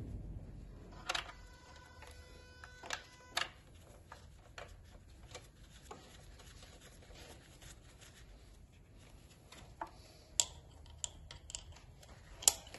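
Hand tools and metal parts clicking and knocking at a car engine's spark plug holes as a compression gauge's hose is moved to the next cylinder, with the engine not running. About a second in, a ringing metallic tone lasts a couple of seconds.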